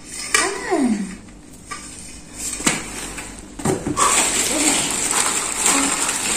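Hard plastic pipe connectors clicking and clattering while a plastic bag rustles as a hand rummages through them; a few sharp clicks come between about two and a half and four seconds in, followed by steady bag rustling. A baby makes a short falling vocal sound near the start.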